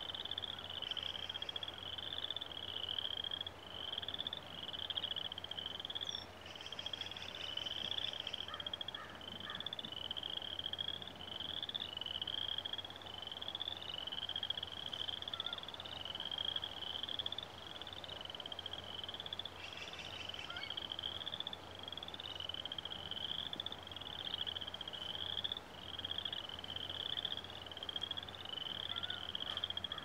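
A frog chorus trilling without a break: short, high, pulsed trills follow one another about once a second. A few brief, higher chirps come over it about a second in, around a quarter of the way through, and again past the middle.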